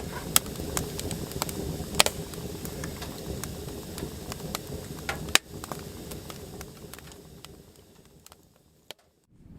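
Wood fire burning in a hot-tent wood stove: a steady rushing with scattered sharp crackles and pops, the loudest about two seconds in and just past five seconds, fading away near the end.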